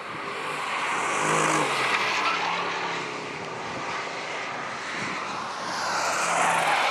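Performance SUVs' V8 engines running hard on a race circuit. The engine note swells as one car passes about a second and a half in, eases off, then swells again near the end as another approaches.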